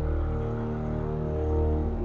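Background music of long held chords.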